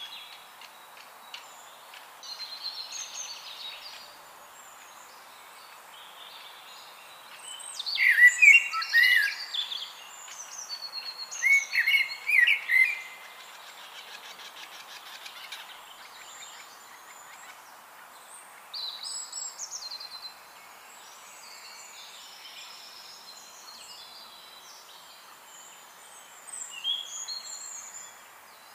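Several songbirds singing and chirping over a steady soft hiss. The loudest are two runs of short, quick notes about eight and twelve seconds in.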